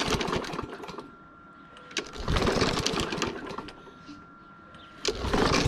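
Troy-Bilt TB110 push mower being pull-started: the recoil starter cord is yanked and the engine cranks over twice without catching, then a third pull starts near the end.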